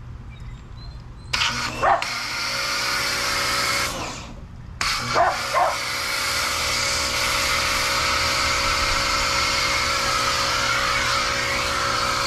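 Electric pressure washer motor and pump running and spraying through a foam cannon, a steady whine over a hissing spray; it cuts off briefly and starts again about five seconds in. The owner judges it too weak to drive the foam cannon properly. A dog barks a few times over it.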